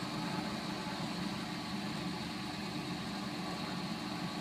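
Hammond OK-12 three-phase dual-head grinder coasting after switch-off, its wheels still spinning with a steady hum. The long, smooth run-down is the sign of good bearings.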